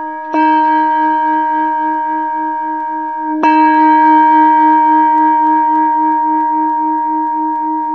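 A bell-like chime tone with a slow pulse, struck anew about a third of a second in and again about three and a half seconds in. Each strike rings on and fades slowly.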